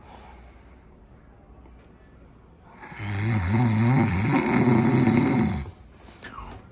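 A person snoring: one long snore of about three seconds, starting about three seconds in, with a low, wavering pitch.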